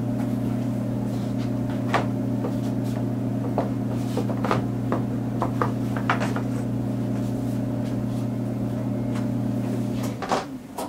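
Plastic clicks and knocks as the plastic air-guide panel at the front of a Hyundai Veloster N's radiator is pulled up and off its clips, over a steady low hum that winds down and stops near the end.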